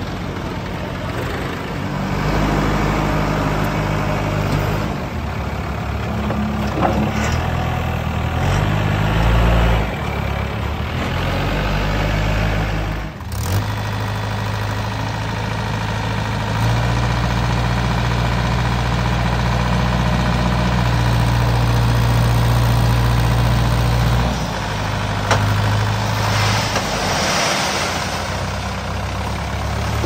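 Tractor diesel engines running and revving up and down. In the second half a Mahindra Yuvo 415 DI's four-cylinder diesel revs up and holds high for about eight seconds, then drops back, as it raises its tipping trolley with the hydraulics.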